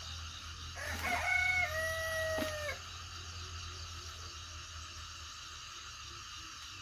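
A rooster crows once, a single call of about two seconds beginning about a second in, rising at its onset and then held with a slight dip in pitch in its second part.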